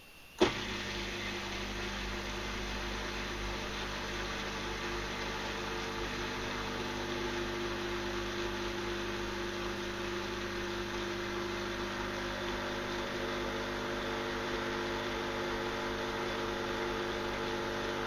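Proline tabletop dishwasher's pump starting with a sharp click about half a second in, then running with a steady hum, pumping out water at the start of its eco cycle.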